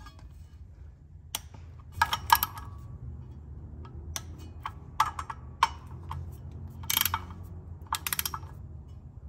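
Torque wrench ratcheting in short bursts of clicks as flex plate bolts are tightened to 35 foot-pounds, the first torque pass, over a low steady hum.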